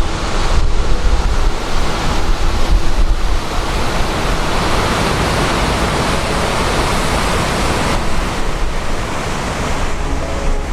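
Godafoss waterfall's steady rush of falling water, with wind rumbling on the microphone, gustiest in the first few seconds.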